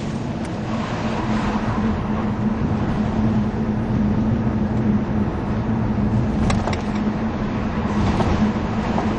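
Vauxhall Monaro's V8 engine running with a steady low hum under tyre and road noise, heard from inside the car's cabin on the move.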